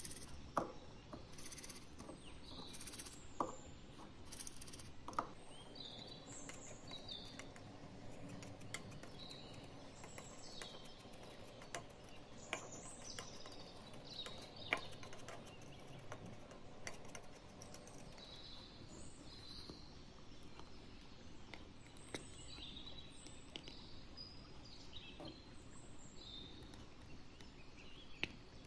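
Small birds chirping on and off in the background over a faint steady hiss, with a few sharp light taps scattered through.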